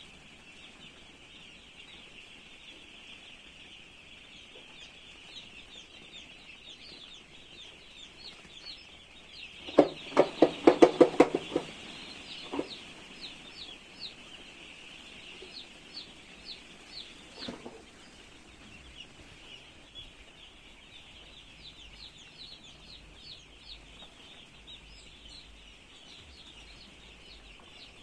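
Many chicks peeping in a steady high chorus, with an adult chicken breaking in about a third of the way through with a rapid run of loud clucks, and a couple of single clucks after it.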